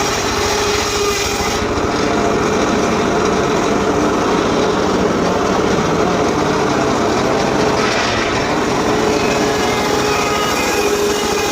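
Small engine of a wood-cutting power saw running steadily at high speed.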